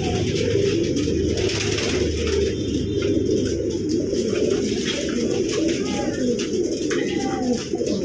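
Many caged racing pigeons cooing at once, a dense, continuous chorus of overlapping coos.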